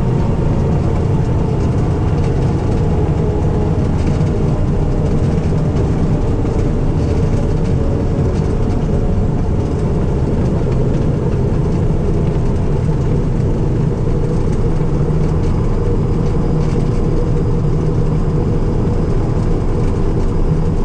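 Lake Buccaneer LA-4-200 amphibian's four-cylinder Lycoming engine and pusher propeller running steadily.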